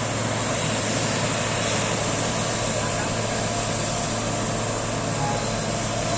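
A heavy engine running steadily with a constant low hum, the kind from road-building machinery or a vehicle working close by.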